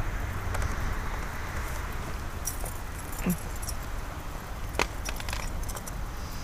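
Keys jingling in a few short bouts, with a sharp click about five seconds in, over a low steady rumble of traffic and wind.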